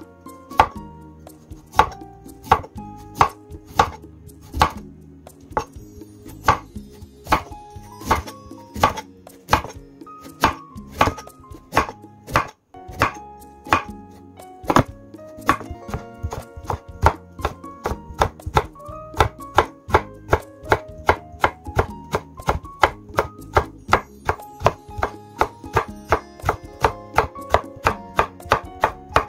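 Chef's knife chopping a carrot on a wooden cutting board: a steady run of sharp knife strikes against the board, quickening in the second half, with light background music underneath.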